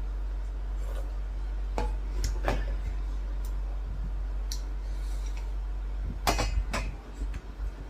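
Dishes and cutlery clinking: a handful of short, light clinks spread through, with a louder pair about six seconds in, over a steady low hum.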